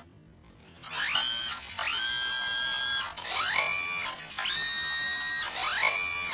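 Hydraulic whine from a tractor back blade's hydraulic system as its cylinders move the blade: five high whines in a row, each rising in pitch at its start and then holding steady, separated by short breaks.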